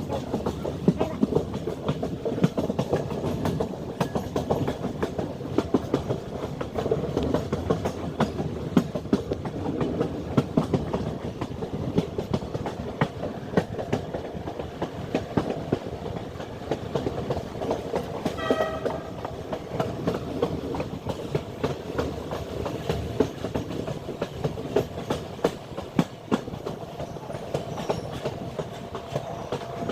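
Train running on the track, its wheels clicking and rattling over the rails in a steady, dense clatter. About two-thirds through, a short horn note sounds once.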